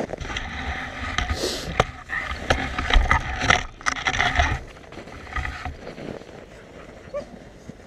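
Rumbling and rattling of a ride over rough ground, with many scattered clicks and knocks; it quietens about six seconds in.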